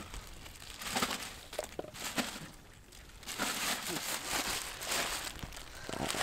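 Plastic bag rustling and crinkling in stretches as fish are bagged up, with a quieter pause midway.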